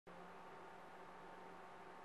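Near silence: faint room tone, a steady hiss with a low even hum.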